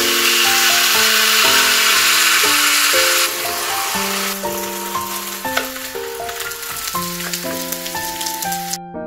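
Potato-coated fried chicken sizzling loudly as it is pressed in a hot waffle iron; about three seconds in the sizzle drops to a fainter crackle with scattered clicks, which cuts off suddenly near the end. Piano background music plays throughout.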